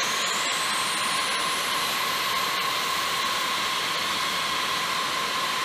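B-52 bomber's jet engines spooling up after a cartridge start: a steady rushing hiss with a whine that climbs in pitch over the first three seconds, over a few steady tones.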